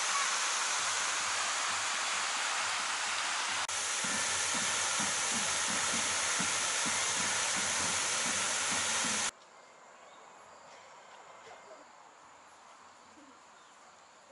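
Park fountain jets splashing, a loud steady rush of falling water, with a low pulsing about twice a second in its later part. It cuts off abruptly about nine seconds in, leaving quiet open-air ambience.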